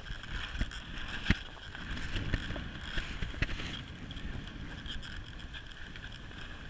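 Skis sliding and scraping over snow, with wind rushing on the microphone and a few sharp clicks.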